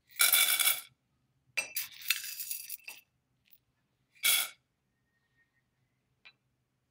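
Dry popcorn kernels tipped by the spoonful into a stainless steel saucepan, the hard kernels clinking and rattling on the metal in three short bursts, the middle one the longest.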